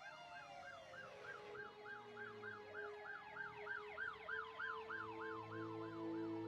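Faint emergency-vehicle siren yelping, rising and falling about three times a second, with other siren tones sliding down in pitch in the first two seconds. Soft sustained music comes in about five seconds in.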